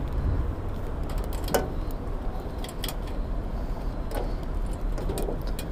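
Steady low rumble of city street traffic, with a few light clicks and clatters as a stack of letters is pushed into a street post box.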